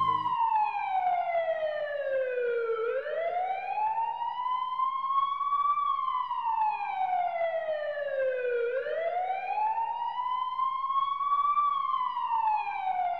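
A slow, siren-like wailing tone that slides down and back up again about once every six seconds, with no other instruments beneath it.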